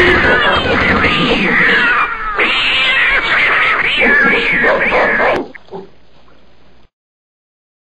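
Loud, overlapping yowling cries that slide up and down in pitch, stopping about five and a half seconds in.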